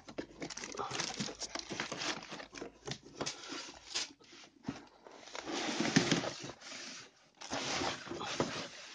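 Plastic wrapping crinkling and a cardboard box rustling as hands handle and lift out the bagged part, in irregular bursts with small knocks.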